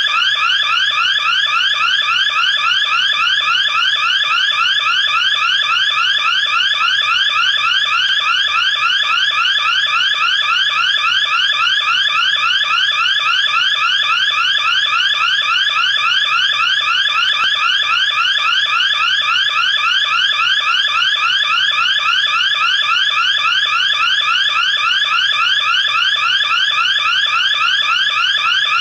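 Electronic security alarm siren sounding continuously, a fast repeating rising sweep several times a second over a steady low hum: an alarm set off by tampering with an air conditioner unit.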